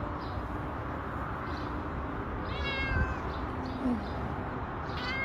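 A domestic cat meowing twice, short calls that fall in pitch, over a steady background hiss.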